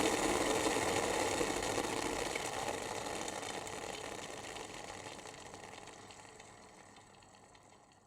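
Electric kettle's boiling noise dying down: the dense rushing bubbling fades away steadily over several seconds, leaving only faint ticks near the end.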